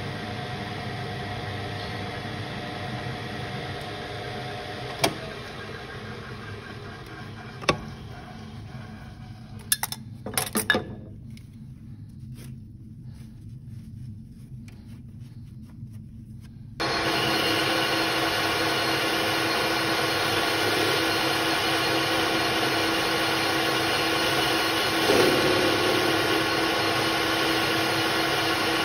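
AL-1324 centre lathe running steadily, with two sharp knocks and then a short clatter of handling, after which it goes quieter. About seventeen seconds in, the lathe starts up again suddenly, louder, and runs steadily while the tool cuts metal from the spinning part.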